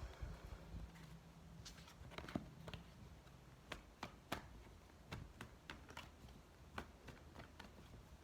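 Faint, irregular clicks and light taps, about a dozen spread over several seconds, of tarot cards being handled and laid down on a table.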